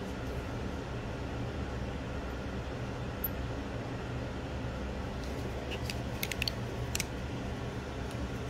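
A steady low background hum, with a few light, sharp clicks of small metal knife parts and tools being handled, about five to seven seconds in.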